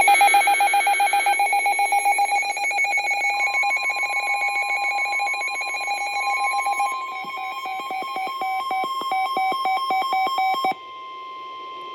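Rapid electronic alert beeping from a weather radio receiver, joined about three seconds in by NOAA Weather Radio's steady 1050 Hz warning alarm tone, which signals that a warning such as this tornado warning follows. The beeping stops near the end while the steady tone carries on.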